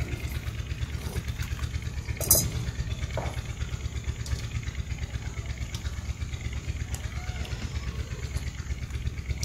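An engine running steadily with a low, rapid chugging pulse, with one sharp click about two seconds in.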